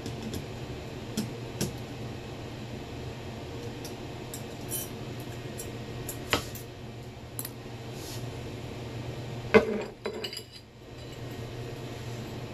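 Small metallic clicks and clinks from a GT35R turbocharger core being worked apart with snap ring pliers, with a louder metal clank about nine and a half seconds in, over a steady low hum.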